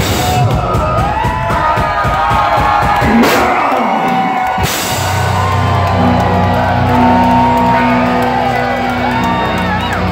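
Club concert crowd cheering, whooping and shouting after a rock song ends. From about halfway through, a steady low amplified note rings underneath the crowd.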